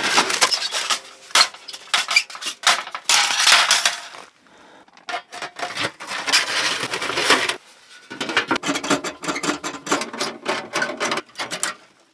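Sheet-steel camp wood stove being slid out of its canvas carry bag and unfolded: irregular clattering and clinking of metal panels, with rustling and scraping in the first few seconds.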